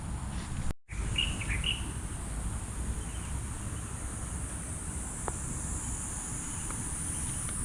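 Outdoor insect drone, a steady high-pitched buzz, with a few short bird chirps about a second in. The sound cuts out for an instant just before the chirps.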